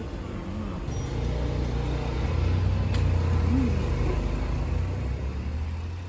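A motor vehicle's engine running at steady low revs, growing louder about two seconds in.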